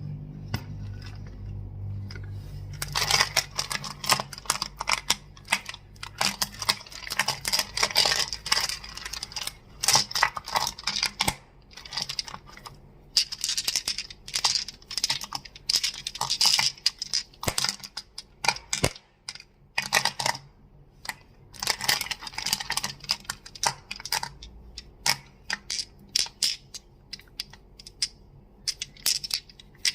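Crystals clicked and tapped against each other in quick runs of sharp clicks, with short pauses between the runs.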